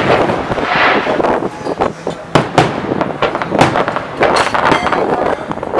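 Aerial fireworks shells bursting overhead in quick succession: a rapid run of sharp bangs, with a crackling hiss near the start.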